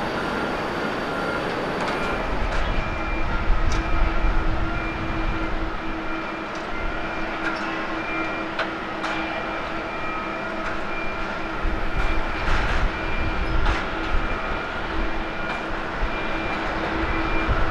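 Boeing 737-800 jet engines running steadily at low power as the airliner moves along the runway: a whine of several held tones over a low rumble. Before that, about two seconds in, a departing Boeing 777-200ER's roar gives way to the whine. A few faint clicks sound throughout.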